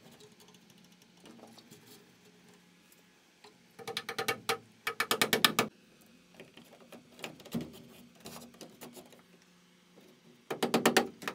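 Hammer driving cable staples into a wooden stud to secure Romex cable: two quick runs of sharp taps about four and five seconds in, and another starting near the end, with quiet wire handling between.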